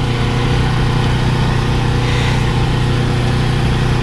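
A motor running steadily: a constant low hum that holds one pitch without revving or stopping.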